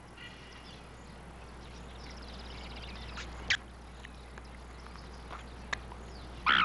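Quiet film-soundtrack hiss with a faint trill, one sharp click about three and a half seconds in, and a loud falling animal call at the very end.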